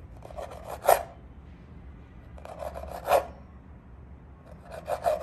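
Kitchen knife slicing bell pepper on a cutting board: three slow cuts, each a rasping stroke that ends in a knock of the blade on the board.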